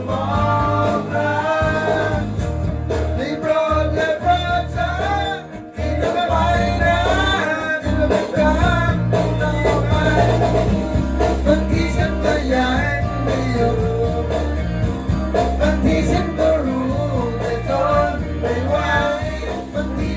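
A song playing: a singing voice over instruments with a steady bass line.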